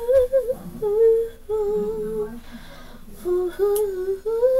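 A girl's voice humming a wordless melody unaccompanied, in held notes that rise and fall over several short phrases: the opening of a self-written song.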